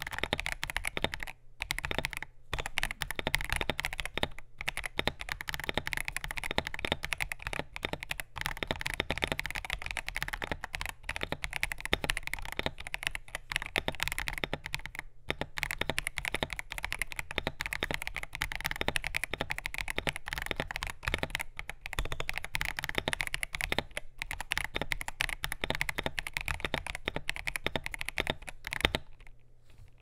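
Continuous typing on an FL·ESPORTS CMK75 mechanical keyboard with FL.CMMK Glacier Pink switches, a polycarbonate plate, gasket mount and PBT double-shot FSA-profile keycaps: a dense run of keystroke clacks with a few short pauses, stopping about a second before the end.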